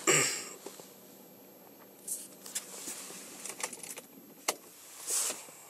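Handling noise: scattered light clicks and the jingle of keys. A short noisy burst at the start is the loudest sound, and there is another near the end. A faint steady hum runs underneath.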